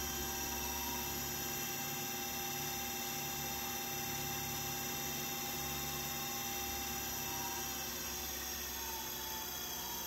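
Brushless hoverboard hub motor spinning a fan blade at high speed: a steady electric hum with several steady high-pitched tones over an even rush of air.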